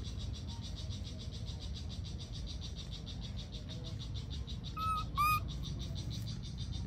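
Insects chirring in a fast, steady pulse, about ten pulses a second. About five seconds in, two short, high-pitched calls sound about half a second apart and stand out above the chirring.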